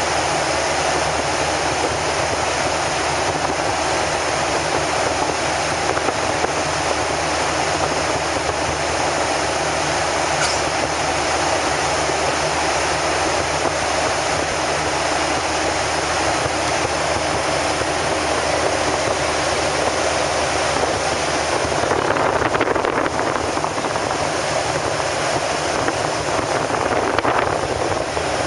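Steady cabin noise of a Boeing 737-800 in flight: an even rush of engine and airflow noise with a faint low hum, swelling slightly twice near the end.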